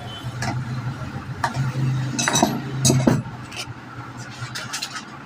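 Steady low hum with scattered metallic clicks and knocks, like parts and tools being handled; the hum drops away about three seconds in.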